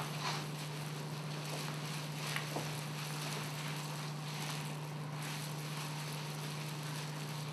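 Steady low electrical hum, with faint soft rustles and squishes of gloved hands working hair dye through wet, lathered hair.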